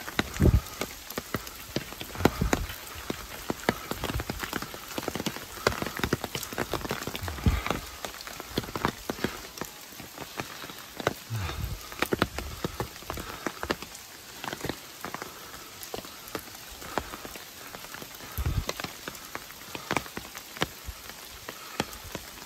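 Rain pattering on leaves: a dense, irregular spatter of small drops with no letup, broken by a few dull thumps of footsteps on wet leaf litter.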